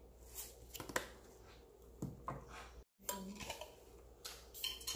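Hands working seasoning into raw chicken drumsticks in a glass bowl: soft handling noises with a few light clicks and knocks. The sound cuts out for a moment about three seconds in.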